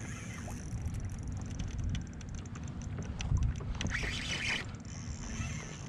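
Wind buffeting the microphone and water lapping against a kayak hull, with light clicks throughout and a brief hiss about four seconds in.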